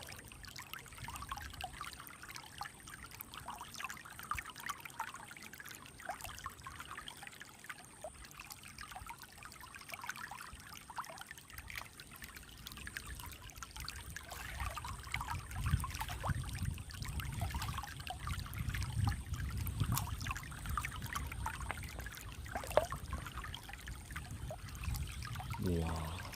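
Mountain stream trickling and burbling over stones. From about halfway a deeper low rumble in the water grows stronger, with a few sharp clicks.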